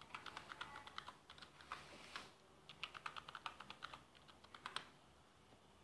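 Faint keystrokes on a computer keyboard as a password is typed: two quick runs of key clicks, about two seconds each, with a short pause between them. The password is typed once and then again in the confirmation field.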